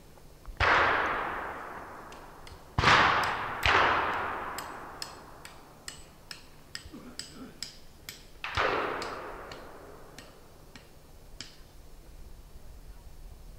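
Four distant black-powder muzzleloader shots, each a sharp crack with a long echo fading over a second or two. The second and third come close together about three seconds in, and the last comes near the middle. A faint series of high ticks, about two a second, runs between the later shots.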